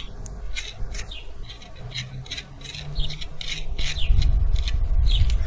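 Small metal parts clicking and rubbing as nuts and washers are handled on an electric-bike hub-motor axle, with short falling bird chirps in the background. A low rumble grows louder near the end.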